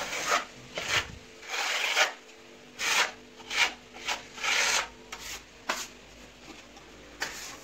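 Hand plastering trowel scraping decorative travertine plaster across a wall in a first coat: a string of irregular rasping strokes, some short, some drawn out for about half a second.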